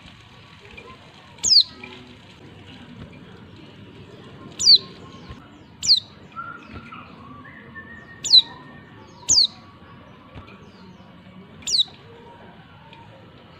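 Female white-eye (pleci) giving six short, sharp call notes, each a quick downward slur, spaced irregularly a second or more apart. These are the female contact calls that bird-keepers play to spur male white-eyes into song.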